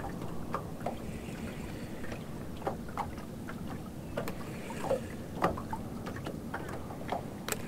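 Small waves lapping against the side of a small fishing boat: a handful of short slaps and splashes over a steady low background rush.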